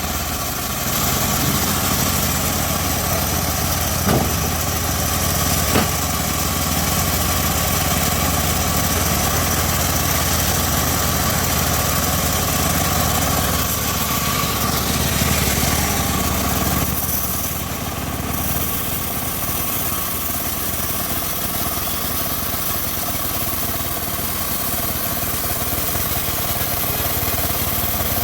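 Homemade bandsaw sawmill running steadily, with a low machine hum. Two short knocks come about four and six seconds in, and about two-thirds of the way through the low hum weakens and the sound shifts.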